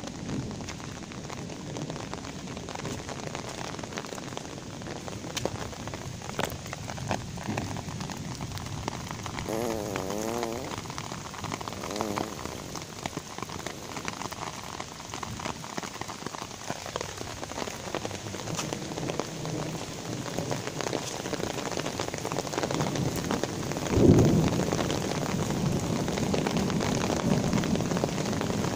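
Steady rain falling on paving and splashing into a puddle, with a short low rumble near the end.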